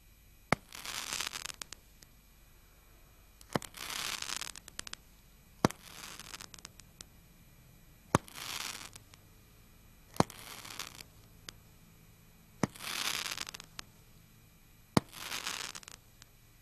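Pyro Paint Balls 7-shot Roman candle firing its seven shots, each a sharp pop followed by about a second of crackling as the crackling star bursts. The shots come every two to two and a half seconds.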